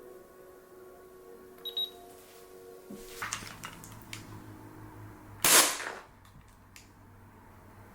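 A single shot from a Carbon8 Steyr L9-A2 CO2 gas airsoft pistol, about two-thirds of the way in, with a few small clicks before and after it. Background music fades out in the first few seconds.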